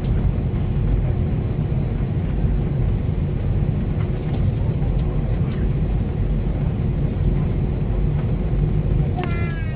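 Steady low rumble inside an Airbus A320-232 cabin, with a faint steady hum over it. A voice is heard briefly near the end.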